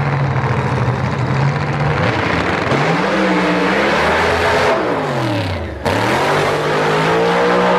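V8 doorslammer drag car's engine holding a steady note on the start line, then revving hard as it launches down the strip. The pitch rises, falls steeply and climbs again.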